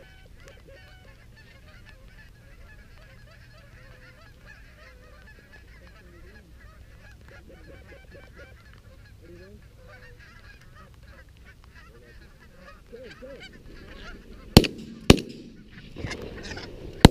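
Canada geese honking steadily as the flock comes in over the decoys, growing louder near the end. Then two shotgun blasts about half a second apart ring out.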